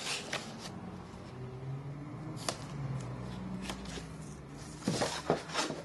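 Paper rustling and page handling as a zine is leafed open and a thin plastic flexi disc is slid out from between its pages, with scattered soft swishes and a quick cluster of paper rustles about five seconds in.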